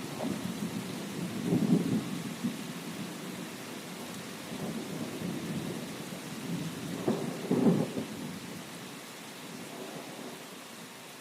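Steady rain with low rumbles of light thunder, the two strongest about two seconds in and about seven to eight seconds in; the whole sound slowly grows quieter toward the end.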